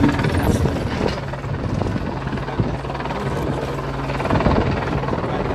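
A steady low engine drone with a rumbling, pulsing texture under it.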